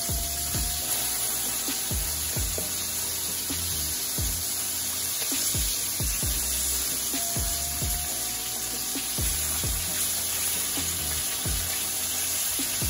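Small floured whole fish shallow-frying in hot oil in a skillet, a steady sizzle, over background music with a steady beat.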